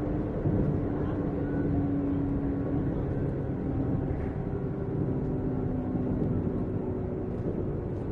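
JR 455 series express-type electric multiple unit running, heard from inside the carriage: a steady rumble of wheels on rail with a traction-motor and gear hum that slowly falls in pitch.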